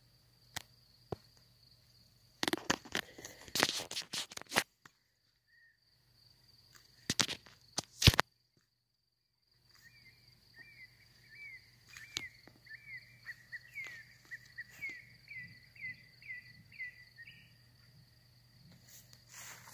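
Night outdoor sound: a steady high insect trill, with loud crackling rustles of grass and handling twice in the first half. Later a long run of short chirping calls, about two to three a second and quickening toward the end, comes from an unseen animal.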